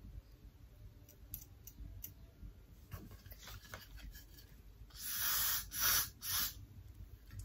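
Small scissors snipping wig lace, faint and scattered, then a Got2b hairspray aerosol can sprayed in three short hissing bursts about five seconds in, setting down the lace at the sideburn.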